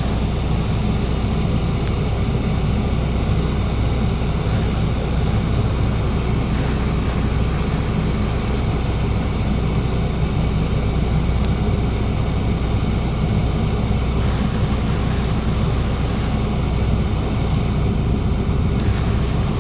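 Background music that stands in for the removed field sound: a dense, steady track with a strong low bass that changes character every few seconds.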